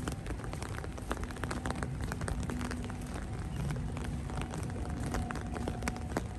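Steady rain falling, with many sharp drop clicks close by over a low noise, and a faint steady hum underneath.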